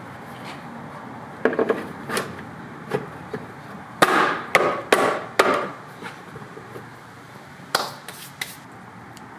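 Sharp plastic clicks and knocks, a run of them clustered about four to five and a half seconds in and a few more near the end, from handling the Jeep Patriot's tail light assembly and its plastic pop pins.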